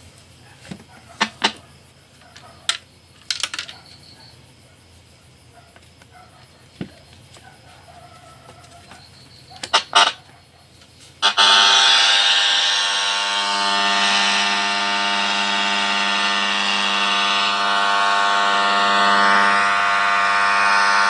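Small clicks and knocks of a battery radio being handled and switched on. About eleven seconds in, the radio's speaker, just reconnected by soldering, suddenly comes on loud with a steady humming tone and hiss, showing that the sound fault is fixed.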